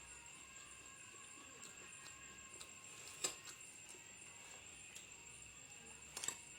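Faint steady high-pitched chirring of night insects, with two sharp clicks, one about three seconds in and one near the end.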